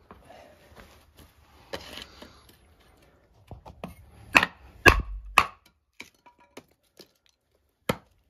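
A wooden baton striking the spine of a quarter-inch-thick camp knife, driving the blade across a piece of split firewood on a chopping block: three hard strikes about half a second apart in the middle, a few light knocks, then one more sharp strike near the end.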